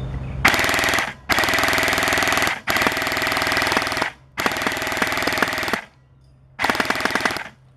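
Airsoft gun fired on full auto in five bursts of rapid clicking, each about a second or more long, with short pauses between.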